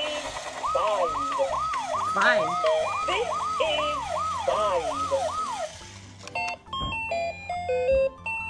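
Electronic learning-toy school bus playing through its small speaker: a warbling, siren-like sound effect that rises and falls about twice a second for roughly five seconds, then a short beeping electronic tune of stepped notes.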